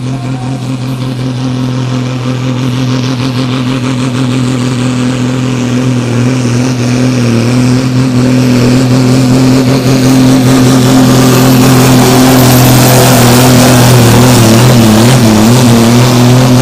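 Super Sport class diesel pulling tractor running at full throttle under load as it drags the sled. Its steady engine note grows louder throughout, and the pitch wavers near the end.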